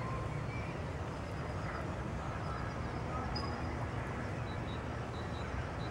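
Steady low outdoor rumble with faint, high small-bird chirps over it, a string of short repeated notes in the second half.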